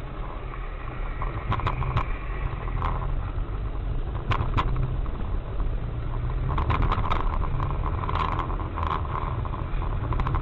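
Steady car engine and tyre rumble heard from inside a moving car through a dash-cam microphone, with scattered short clicks and knocks.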